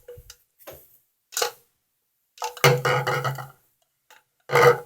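Handling noise from the phone recording the scene: several rustling, rubbing bumps against the device, the longest lasting about a second midway through.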